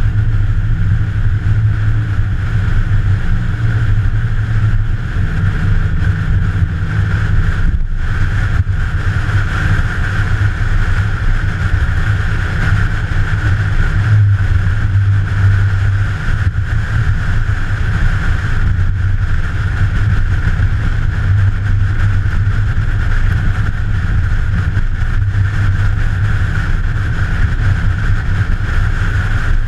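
An engine running steadily, a continuous low rumble with no revving.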